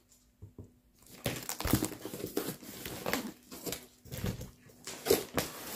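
Cardboard shipping carton being opened by hand: the flaps scrape and the plastic-wrapped, taped box inside crinkles in a string of irregular rustles and soft knocks that start about a second in.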